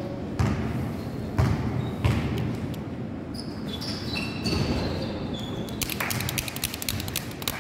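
A basketball bouncing on a gym floor three times, about a second apart, followed by sneakers squeaking as players move for the ball, and a quick run of sharp clicks near the end.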